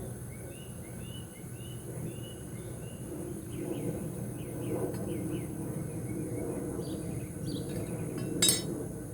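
A bird chirping over and over, short curved chirps in the first three seconds, over a steady high insect drone, with one sharp click near the end.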